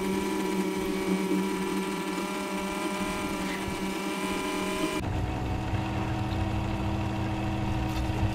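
Electric router motor running steadily, belt-driving a kart water pump at about 1,000 RPM, a steady hum with several held tones. About five seconds in the sound changes abruptly to a lower, rumblier hum.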